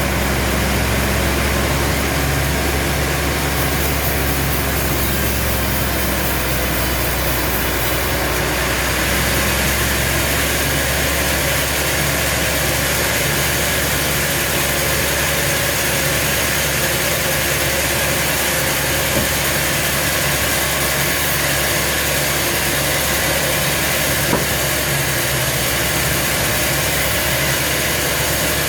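Sawmill machinery running steadily: a continuous engine-like drone with a dense, even noise over it. The low drone weakens about ten seconds in.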